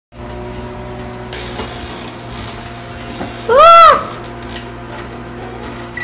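Whirlpool microwave oven running with a steady electrical hum; the oven is faulty and has been sparking. A high hiss joins about a second in, and at about three and a half seconds a single loud meow-like cry rises and falls in pitch.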